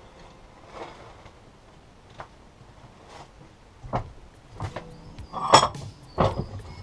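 Metal tools and parts knocking and clinking on a workshop bench: a few faint knocks early on, then a run of sharper knocks and clinks in the second half.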